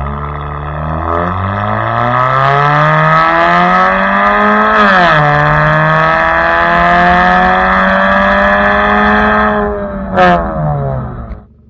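Kia Optima engine and exhaust, with muffler and resonator deleted, under hard acceleration: the pitch climbs steadily, drops sharply at an upshift about five seconds in, then climbs again. Near the end the revs fall away after a brief loud burst as the throttle is let off.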